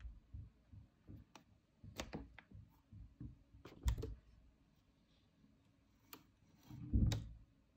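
Handling noise of small carved wooden parts and a plastic glue bottle: scattered light clicks and taps, a sharper knock about four seconds in as the wooden helicopter body is picked up, and a louder dull thump about seven seconds in.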